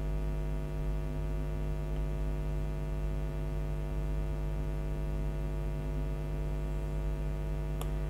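Steady electrical mains hum with a stack of even overtones, unchanging throughout. One faint click comes near the end.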